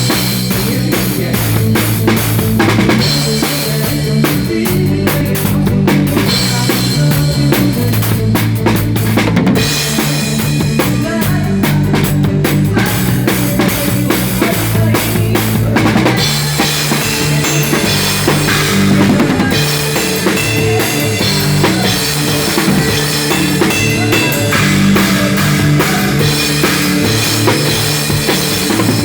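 Drum kit played through a rock song during a sound check, with kick, snare and cymbals over a band's bass line.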